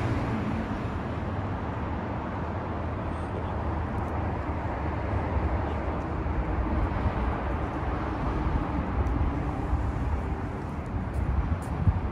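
Steady low rumble of a motor vehicle, with a haze of street noise over it, slightly rougher near the end.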